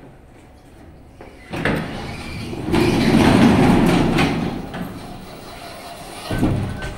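ShchLZ passenger lift's automatic sliding doors opening: a rumbling slide that starts about a second and a half in, is loudest in the middle and fades away. A short thump comes near the end.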